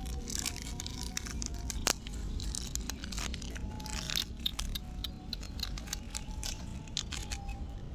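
A plastic cracker packet crinkling and crackling in a hand as crackers are pulled out, with puppies crunching on the crackers.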